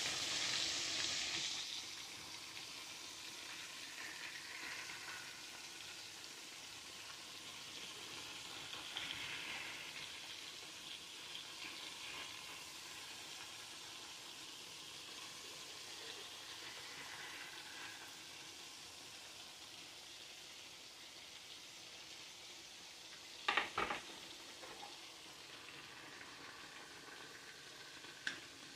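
Chicken thighs frying in oil in a cast-iron skillet: a steady faint sizzle, a little louder in the first couple of seconds. A pair of sharp knocks comes about three-quarters of the way through, and a short one just before the end.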